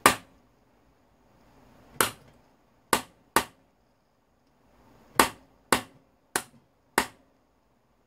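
Hand hammer striking a steel punch set in a hole of an old electric fan motor, to drive a part out the other side. Eight sharp metallic blows come at uneven intervals, the first and one about five seconds in the loudest.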